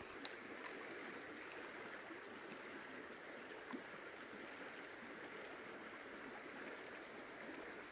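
Faint, steady rushing outdoor ambience with one sharp click about a quarter of a second in.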